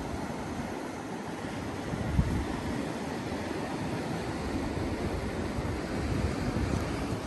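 Sea surf breaking and washing over a flat rocky shore: a steady rushing noise. Wind buffets the microphone in low gusts, the strongest about two seconds in.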